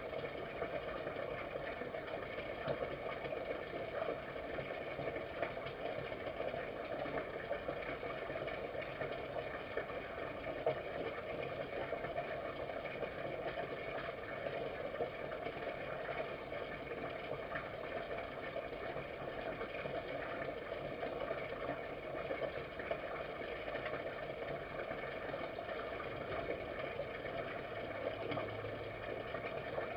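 Steady background hum and hiss with faint scattered clicks from a red fox eating from a dish.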